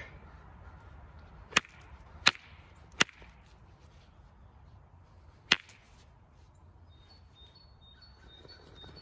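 Hammerstone striking a creek flint core in hard-hammer percussion to knock off flakes: four sharp cracks, three in quick succession under a second apart, then a fourth about two and a half seconds later.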